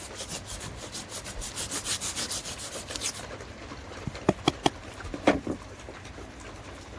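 A blade sawing through cured expandable spray foam in rapid back-and-forth strokes, a squeaky rubbing that runs for about three seconds, followed by a few sharp clicks.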